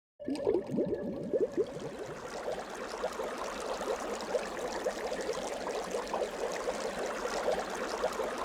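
Water bubbling and trickling: a steady, dense run of small gurgles that starts abruptly just after a moment of silence.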